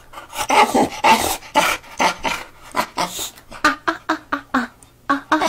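Boxer dog 'talking': a string of short vocal calls, quickening near the end into a rapid run of short sounds, in reply to being offered more chicken.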